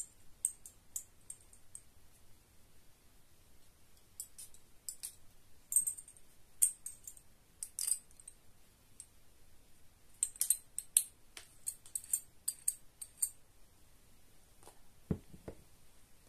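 Small sharp clicks and taps from handling a heart-shaped glass perfume bottle and its gold crown cap, the cap clicking on and off the glass neck in scattered bunches. Near the end there is one duller knock as the bottle is set down on a wooden board.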